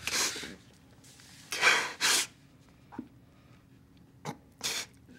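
A man sobbing, with a series of short, sharp, breathy gasps and sniffs. The loudest is a pair about a second and a half in.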